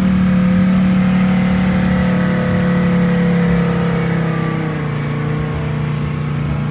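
Vehicle engine running steadily, heard from inside the cab; its note drops slightly in pitch about four and a half seconds in.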